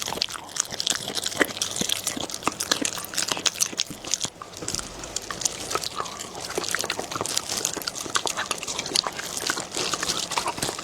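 A dog chewing and crunching food close to the microphone, with many quick irregular crunches and clicks of teeth.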